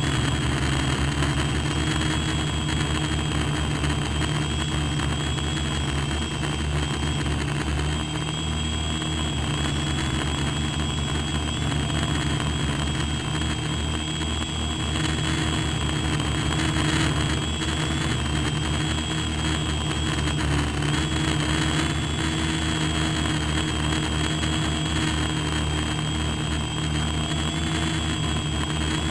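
Radio-controlled model aircraft's motor running steadily close to the on-board camera, a high whine held at an even pitch over a dense low hum.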